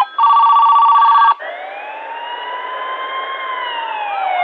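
Electronic alarm tones previewed through an iPhone docking speaker. A steady telephone-like ring cuts off abruptly about a second and a half in, and a siren tone follows that rises slowly and then glides down.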